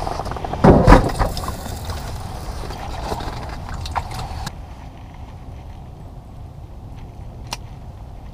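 Knocks and rustling of someone moving about and handling gear, loudest about a second in, over a steady low rumble. After a few seconds it settles to the rumble alone, with a couple of sharp clicks.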